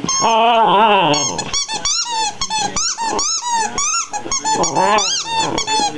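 A red squeaky dog toy squeaking over and over, about three or four short, high squeaks a second, as an Alaskan Malamute puppy chews it. It opens with a longer, lower squeal.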